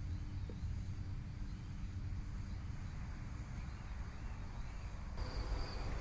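Outdoor ambience: a low steady rumble with a faint high insect trill; about five seconds in it cuts abruptly to a louder, steady high-pitched cricket chirring.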